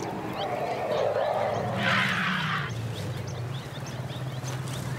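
African elephants sounding: a long low rumble that drops in pitch partway through, with a short breathy blast about two seconds in. Small birds chirp faintly behind.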